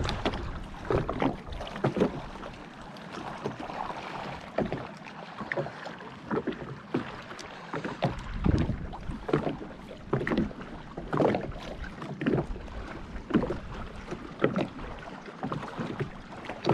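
Small choppy waves lapping and slapping against a small boat's hull, in uneven splashes roughly once a second.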